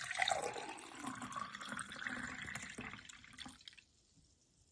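A milky drink poured into a tall drinking glass, a steady splashing pour that stops about four seconds in as the glass fills to the brim.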